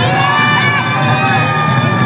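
A festival crowd chanting in unison: long held calls that drop in pitch at their ends, with young voices among them, over continuous crowd noise and festival music.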